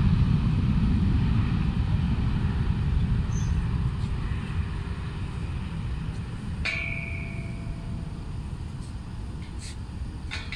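Airbus A330-323's Pratt & Whitney PW4000 jet engines at takeoff thrust, a low rumble fading steadily as the airliner rolls away down the runway. About two-thirds of the way in comes a short ringing metallic ping, and a couple of faint clicks near the end.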